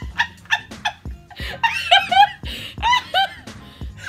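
Two women laughing in short bursts, over background music with a steady beat.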